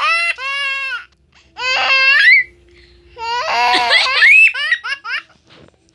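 A small child laughing in three high-pitched bouts of rapid giggles, with short quiet pauses between them.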